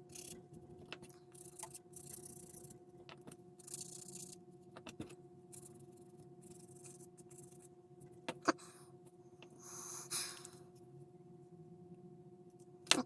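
Plastic model-kit parts being handled and fitted on a workbench: scattered light clicks and rustling scrapes, with a sharper click about eight and a half seconds in and another near the end, over a faint steady hum.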